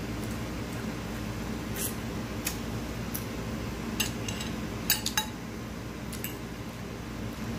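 A metal fork and a corn cob clicking and knocking against a plate, a few short clinks spread out, the loudest pair about five seconds in, over a steady low hum.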